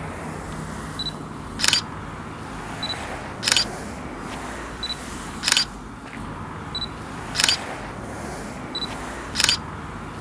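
Canon EOS Rebel XS (EOS 1000D) digital SLR taking five shots, about one every two seconds. Each shot starts with a short high autofocus-confirmation beep, followed about half a second later by the clack of the mirror and shutter.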